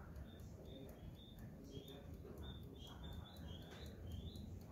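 Vintage Wehrle alarm clock's brass mechanical movement ticking with fast, even ticks, alongside short, high bird chirps.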